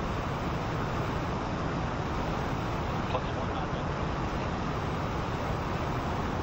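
Five-segment solid rocket booster for NASA's Space Launch System firing horizontally in a full-duration static test: a steady, unbroken rumble and rush of exhaust noise, heaviest in the deep end, at full thrust in the late part of the two-minute burn.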